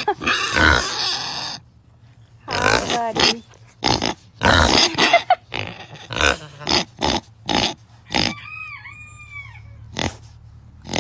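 Pig grunting, a string of short grunts one after another. A brief high-pitched call sounds about eight seconds in.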